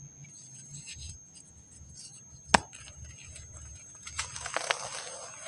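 Dry packed sand crumbling: scattered small crackles, one sharp snap about two and a half seconds in, then a denser run of gritty crumbling near the end.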